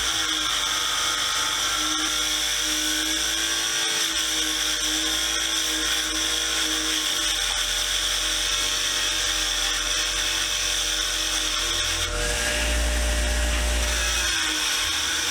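Wire wheel running and scouring rust off the steel parts of a pipe wrench: a steady high whine with hiss, the sound shifting about twelve seconds in as the part is worked against the wheel.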